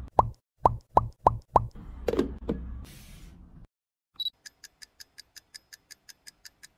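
Cartoon plop sound effects, each a short drop in pitch, five in quick succession as eggs are set into an egg cooker, then two lower plops over a soft rustle. About four seconds in, a short beep, then a timer's ticking at about five ticks a second.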